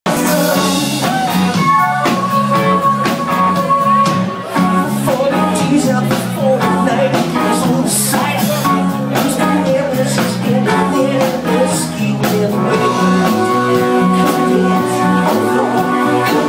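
Live band playing a Motown-style song: electric guitar, bass and drums with a lead singer, loud and steady.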